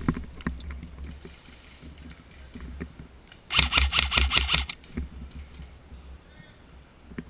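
An airsoft gun firing a rapid burst of about nine shots in just over a second, starting about three and a half seconds in, over a low rumble of wind and movement with scattered small clicks.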